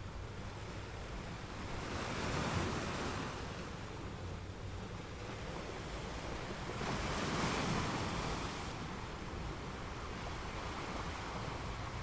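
Rough sea surf, waves surging and breaking in a continuous wash, swelling louder twice: about two seconds in and again about seven seconds in.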